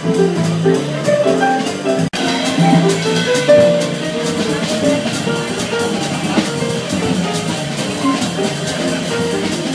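Small jazz band playing live, with a drum kit keeping time under a run of low melodic notes. The sound drops out for an instant about two seconds in.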